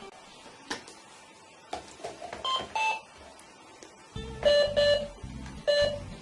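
Toy cash register beeping twice, short electronic tones, after a few light plastic clicks. About four seconds in, electronic music with a steady beat begins.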